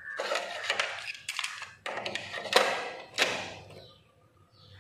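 A string of plastic clicks and clacks from a National portable cassette radio's tape compartment as a cassette is put in and the door is pushed shut. A few more clicks come near the end.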